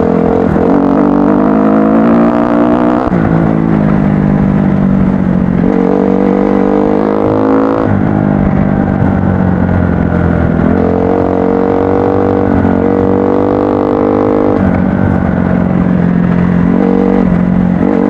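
Kawasaki KX-F dirt bike's four-stroke single-cylinder engine running under load on a trail ride, its pitch rising and falling repeatedly as the throttle opens and closes, with sharp drops around three, eight and fourteen seconds in.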